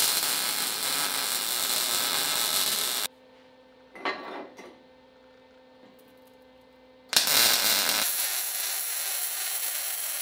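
MIG welding arc running in two welds. The first lasts about three seconds; after a pause, the second starts about seven seconds in.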